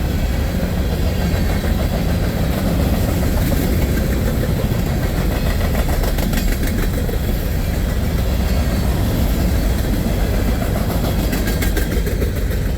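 Empty grain hopper cars of a freight train rolling past in a steady rumble, with runs of clicking from the wheels over the rail about halfway through and again near the end.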